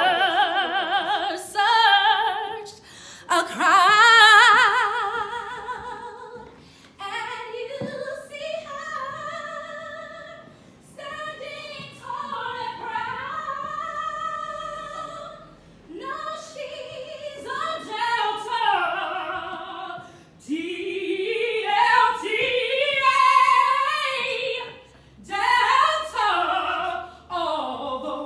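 Women singing a cappella in long held phrases with vibrato, with short breaks between lines.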